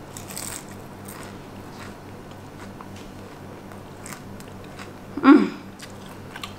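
A person chewing a bite of crispy fried spring roll with the mouth closed, with faint crunches now and then. About five seconds in comes a short hummed "mm", the loudest sound.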